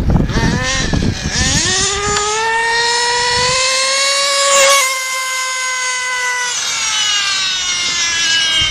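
Nitro-powered RC buggy engine at high revs, its whine rising over the first few seconds. The pitch drops sharply as it passes close by about halfway through, holds a steady note, then falls away near the end.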